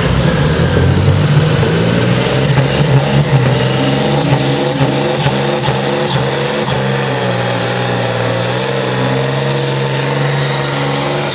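Scania pulling truck's diesel engine running hard under full load while dragging a weight-transfer sled, a loud, steady drone.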